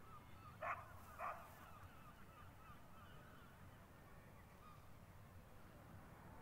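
A bird gives two short, loud calls in quick succession about a second in, over faint distant bird chirping and a low outdoor rumble.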